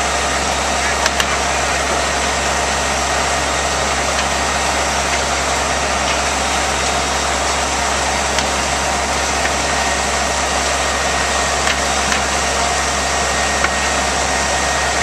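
Fire engine's engine running steadily under load as it drives the pump for a water stream. A few faint sharp pops sound over it.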